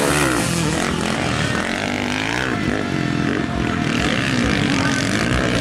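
Motocross bike engines revving, the pitch rising and falling again and again as the riders work the throttle around the track.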